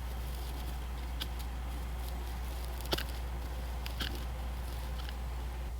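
Tractor engine running steadily, a low hum under a few faint sharp clicks and rustles as the twine on a hay bale is cut.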